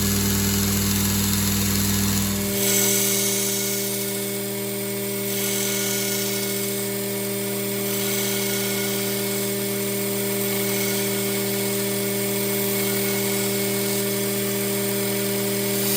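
Belt grinder motor running steadily while a forged steel knife blade is ground free-hand into a convex bevel, the steel on the belt adding a hiss that swells and fades. The sound changes about two and a half seconds in, the deepest part of the hum dropping away.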